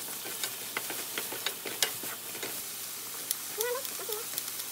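Diced Spam and tuna sizzling in a hot frying pan, stirred with a wooden spatula that clicks and scrapes against the pan. A brief wavering squeak comes near the end.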